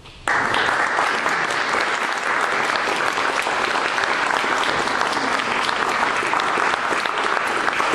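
Audience applauding, the clapping breaking out suddenly just after the start and going on steadily.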